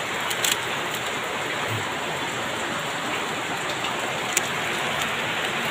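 Steady rain falling, with a couple of brief clicks about half a second in and near the end.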